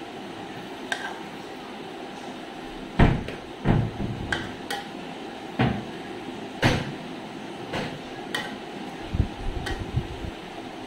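Irregular knocks and clinks against a large aluminium cooking pot as rice is pressed and spread inside it by hand, the loudest about three seconds in.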